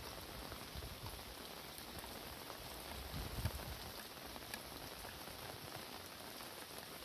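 Steady rain falling, a dense patter with scattered sharp drop ticks. A low thump about three and a half seconds in.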